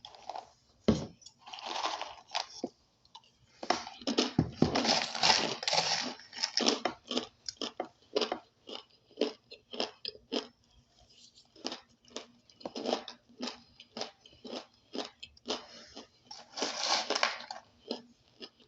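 A person biting and chewing crunchy chunks of starch close to the microphone: a sharp bite-snap about a second in, then steady crunching chews, about two a second, with denser bursts of crunching in the middle and near the end.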